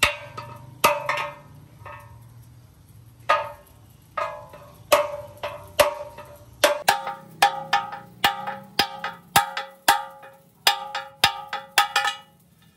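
Hammer blows on a steel tool held against a steel tractor wheel rim: a series of sharp metallic clangs, each ringing briefly. They come sparsely at first and quicken to about three blows a second in the second half, stopping just before the end.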